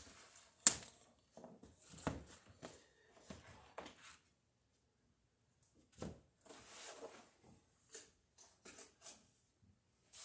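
Faint, scattered handling noises of someone kneeling and working on sailcloth spread over a floor: rustling cloth and light knocks and clicks, the sharpest click under a second in, with a quiet pause midway.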